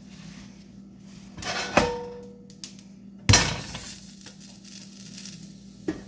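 Kitchen clatter of cookware and utensils. A knock with a short metallic ring comes about two seconds in, then a louder clank a little after three seconds, over a low steady hum.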